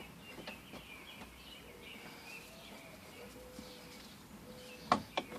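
Faint birds chirping in the background, then two sharp clicks near the end as a T40 Torx screw is worked out of the van's door.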